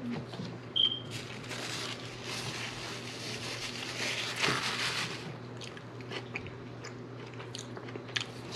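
Close-up mouth sounds of a person chewing food, with small wet clicks. For a few seconds in the middle there is a rustle that fits a paper napkin being rubbed over the hands.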